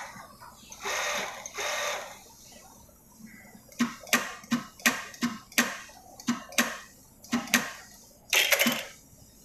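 Zoje industrial sewing machine worked from its foot pedal in short starts and stops: two runs of about a second each, then a string of quick sharp clacks about two or three a second, and one more brief run near the end.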